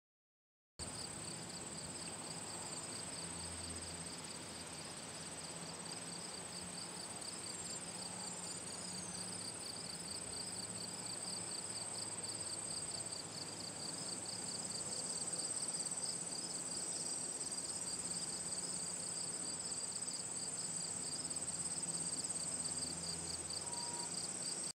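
Insect chorus in summer grassland: a steady high-pitched trill with a second, rapidly pulsing trill below it. It cuts in abruptly about a second in.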